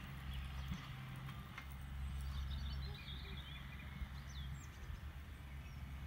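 Faint hoofbeats of a horse moving on a sand arena surface, with birds chirping over a steady low rumble.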